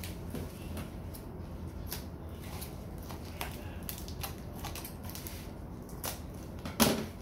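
Hands working a cardboard mailer and its plastic wrap: scattered clicks, scrapes and crinkles as scissors cut through the cardboard and tape, with one louder knock shortly before the end.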